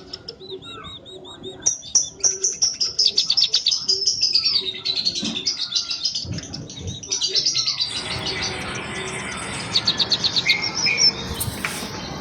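A flock of munias (burung emprit) chirping in a busy stream of high, quick, overlapping calls and short trills, which pick up about two seconds in.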